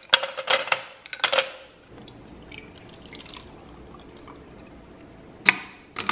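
Ice cubes tipped from a glass measuring cup clatter into a plastic tumbler, several sharp clinks in the first second and a half. Bottled cold coffee is then poured over the ice in a soft, steady pour, and a single sharp knock comes near the end.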